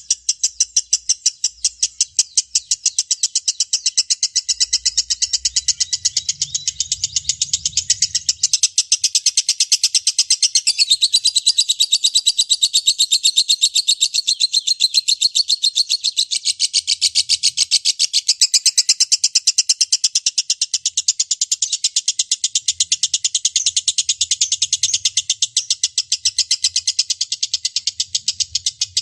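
Lovebird's long chattering song (ngekek panjang): an unbroken run of rapid, high-pitched chirps repeated several times a second, held without a pause.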